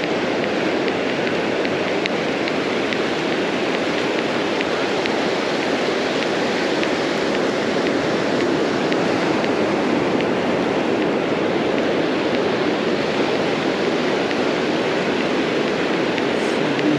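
Ocean surf breaking and washing up a sandy beach: a steady rush of water.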